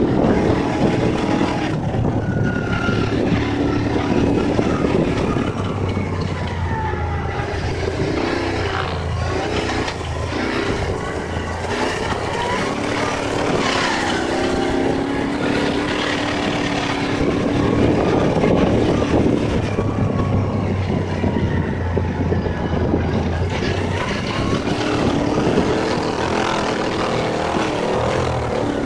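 An engine running steadily with a low drone, under a broad rushing noise.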